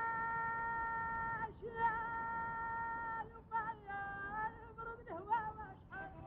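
A woman singing a folk melody: one long held note, then a run of short ornamented notes at changing pitches.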